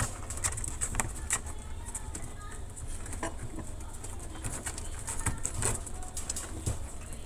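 English Cocker Spaniel puppies nursing: irregular wet suckling clicks mixed with soft squeaks and cooing grunts from the pups.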